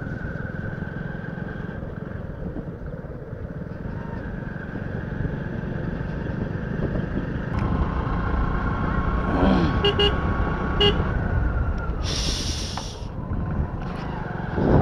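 Motorcycle engine running steadily while riding along a road, with wind and road noise over the microphone. There is a short, brighter, louder sound a little past twelve seconds in.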